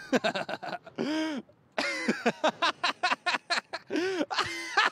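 A man laughing hard: quick breathy bursts of laughter, about four or five a second, broken by a few longer pitched whoops.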